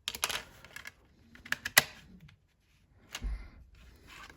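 Plastic DVD case and disc being handled: a handful of sharp clicks and light rustling, with a brief low thump a little after three seconds in.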